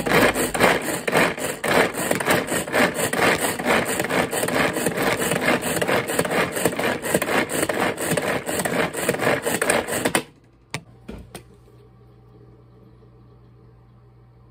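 Pull-cord manual food chopper being yanked over and over, its blades spinning and rattling through chopped food in the plastic bowl in a fast, steady rhythm of several strokes a second. It stops abruptly about ten seconds in.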